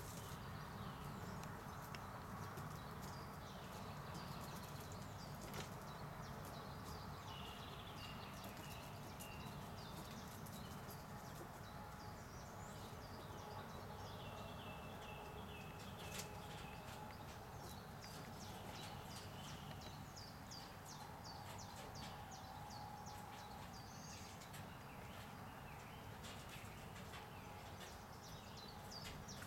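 Small birds chirping and twittering, with short falling chirps throughout and a few longer whistled notes, over a faint steady low rumble.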